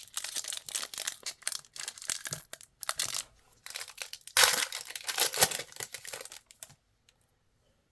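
A trading card pack's plastic wrapper being torn open and crinkled, in a dense run of crackling that stops suddenly near the end.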